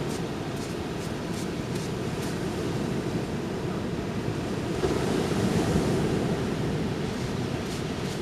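Ocean surf washing up the beach, swelling about five seconds in, with wind buffeting the microphone. Footsteps on sand at an even walking pace in the first couple of seconds and again near the end.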